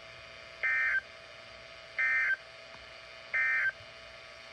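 Emergency Alert System end-of-message (EOM) signal: three short, identical bursts of digital data tones, about a second and a third apart, marking the end of the alert.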